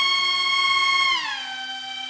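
Four propellers on an RC car spinning fast and pushing it against a tabletop: a loud whine with many overtones that holds steady, then drops in pitch about a second in as the throttle eases.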